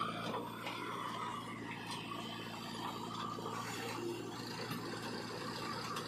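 JCB 3DX backhoe loader's diesel engine running steadily, with scraping and rattling as sand and the bucket move.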